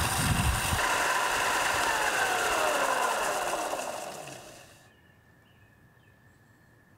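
Benchtop belt sander running, then switched off: its motor whine slides down in pitch over about three seconds and dies away, leaving near silence about five seconds in.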